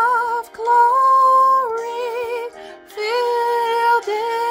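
A woman singing a soprano line solo, holding long notes with a wavering vibrato. One note about a second in is higher and held steadily, and there are short breaks between phrases.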